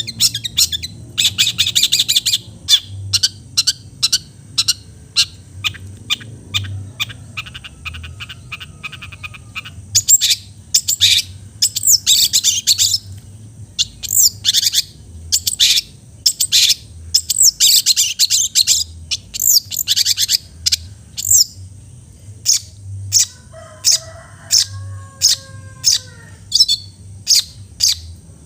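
Long-tailed shrike (cendet) singing a mimicked 'isian' song: a rapid, almost continuous run of sharp, high chirps and harsh notes in loud clusters, with a lower, slurred whistled phrase a little past the middle.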